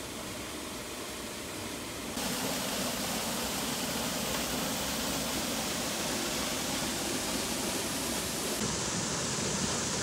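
Steady rush of flowing water that steps up about two seconds in to the louder, brighter rush of a waterfall pouring into a pool.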